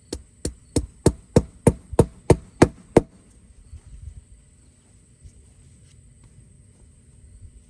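A hammer driving a tubing clip into the wooden side board of a raised garden bed, fastening drip-irrigation poly tubing: ten quick strikes about three a second, mostly growing louder, stopping about three seconds in.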